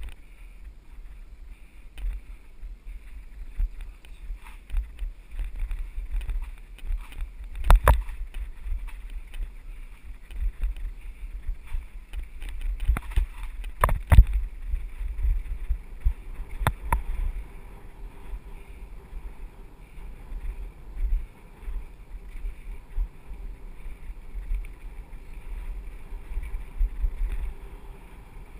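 Mountain bike riding a dirt singletrack, heard from an action camera mounted on it: a continuous low rumble of tyres and wind on the microphone, with sharp knocks and rattles as the bike jolts over bumps, the loudest about 8 and 14 seconds in.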